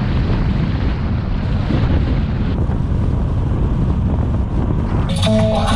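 Wind buffeting a microphone held out of a moving car's window, a loud, steady low rumble. Music comes in near the end.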